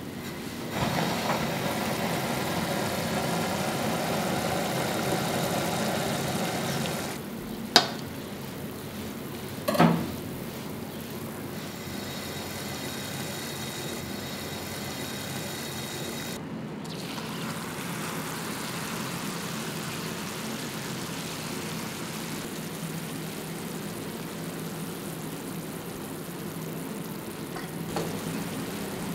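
Syrup boiling hard in a stainless steel saucepan on a gas ring: a steady bubbling hiss, louder for the first several seconds. Two sharp knocks come about eight and ten seconds in.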